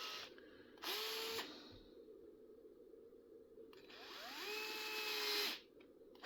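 Small power drill running in two short bursts, the first about half a second long, the second rising in pitch as it spins up, then holding steady before cutting off sharply. It is making holes in rubber RC tire tread for ice studs.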